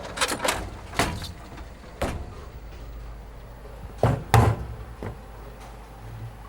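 A few sharp knocks at irregular intervals: a cluster near the start, single ones about one and two seconds in, and the loudest pair about four seconds in, over a steady low rumble.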